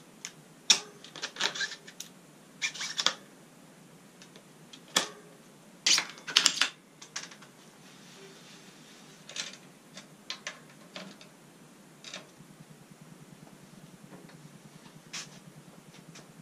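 Irregular sharp clicks and short metallic rattles of bike parts and hand tools being handled while the wheels are fitted to a downhill mountain bike. They are loudest and densest in the first half. A fainter, fast, even ticking runs through the last few seconds.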